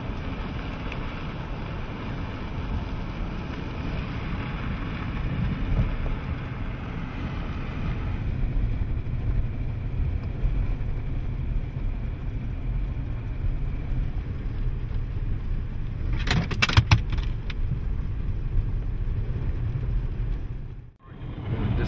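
Car driving, with a steady low engine and road rumble. A short cluster of sharp clicks comes about sixteen seconds in, and the sound cuts out abruptly for a moment just before the end.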